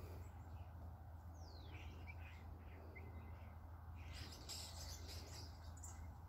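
Faint, high bird chirps: a falling whistled note about a second and a half in, then a few short chirps, over a low steady hum, with a brief rustle about four seconds in.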